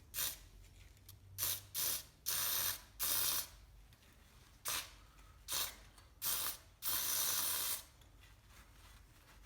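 Aerosol can of spray-on white lithium grease hissing out in about nine short bursts, the longest about a second near the end, as the grease is sprayed onto garage door hinges and rollers.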